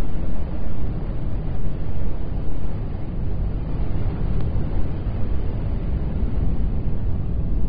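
A steady, loud low rumble with no distinct events, a dense noise weighted toward the bass.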